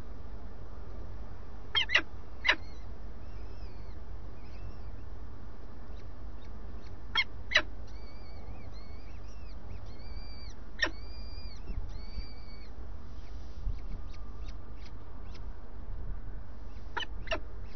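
Peregrine falcon chicks calling in the nest as they are fed: short sharp calls in pairs about two seconds in, again around seven seconds and near the end, with a run of quick chirps between about eight and twelve seconds. A steady low hum lies underneath.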